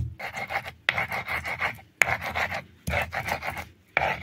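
Garlic cloves being ground between a flat stone slab and a hand-held grinding stone (a Nepali silauto and lohoro): a gritty rasp of stone rubbing on stone, in back-and-forth strokes about one a second.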